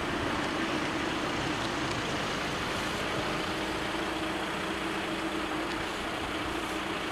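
Road vehicles idling: a steady low engine hum under an even rushing hiss.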